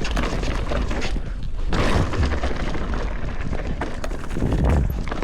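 Mountain bike riding down a dirt trail: a steady low rumble of wind buffeting the microphone and tyres on the ground, with frequent knocks and rattles from the bike over rough terrain, loudest about two seconds in and near the end.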